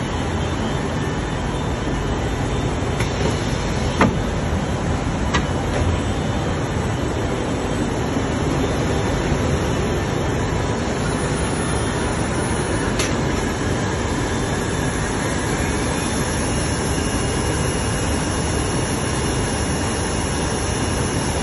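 Steady workshop machinery noise, an even hum without clear pitch, with a few sharp clicks, the loudest about four seconds in.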